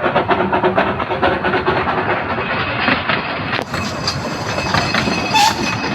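Narrow-gauge train running along the track, its wheels clicking rapidly over the rails, with a brief high hiss near the end.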